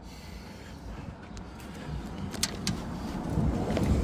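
Sharp metal clicks and a low rumble that swells near the end, as the engine is shifted to line up a motor mount.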